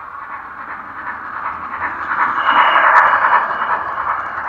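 Large-scale garden model train running on its track and passing close by. The rolling sound builds as it approaches, is loudest about three seconds in as the coaches go by, then eases off. There is one sharp click at the peak.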